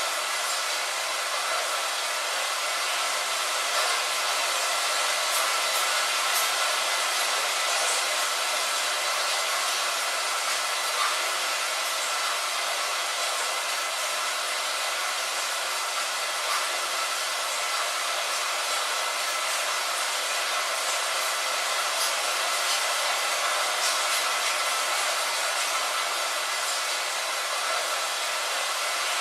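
Steady rain, heard as an even hiss with faint scattered drop ticks.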